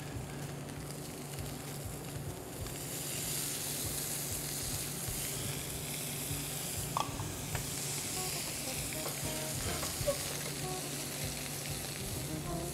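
Catfish fillets coated in blackened seasoning and clarified butter sizzling hard in a very hot aluminum skillet as they blacken. The sizzle grows louder about two and a half seconds in, with a few small pops.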